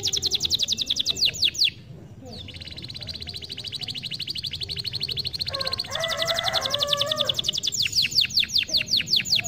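Domestic canary singing: rapid repeated high notes, a brief break about two seconds in, then a fast, even high trill, then loud rapid repeated notes again from about six seconds in.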